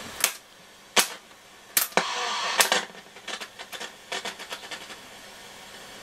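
Sharp clicks of a Nordmende Transita transistor radio's piano-key waveband buttons being pressed, about five in a row, with a short burst of hiss from the radio and then a run of fainter crackles. No FM station comes through; the owner suspects a dirty FM switch.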